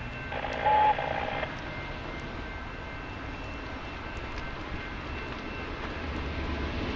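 Diesel-hauled freight train approaching, a low rumble that grows louder near the end. A short, loud tone sounds about half a second in and stops after about a second.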